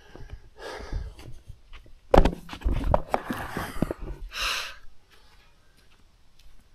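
Camera handling noise as the camera is picked up and carried: knocks and rubbing, loudest about two seconds in. A man's heavy breathy huff follows about four seconds in, then faint footsteps on dirt.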